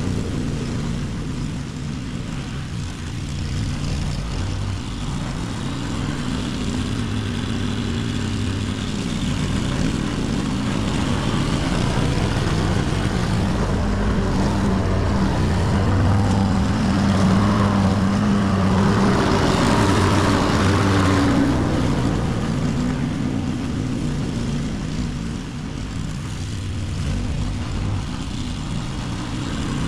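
Walk-behind rotary lawn mower's engine running steadily while cutting grass, louder for several seconds just past the middle as it comes nearer.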